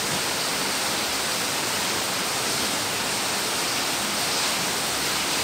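A steady, even hiss of background noise with no pitch or rhythm.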